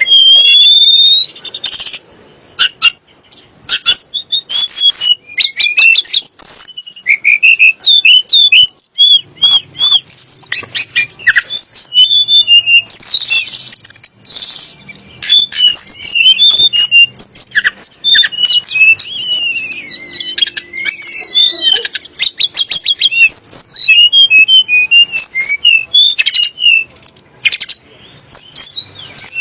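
Tledekan gunung song: a loud, rapid run of varied chirps, trills and whistles, broken by short pauses.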